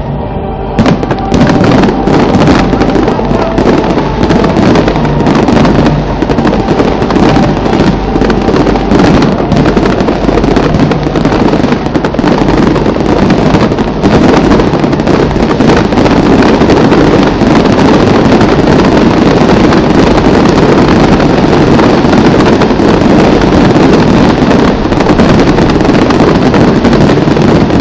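Fireworks going off in a dense, continuous barrage: rapid bangs and crackling overlap with no pause, very loud.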